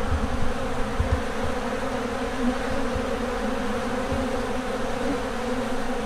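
Steady, dense buzzing of hundreds of honeybees flying close around, feeding on honeycomb scraps.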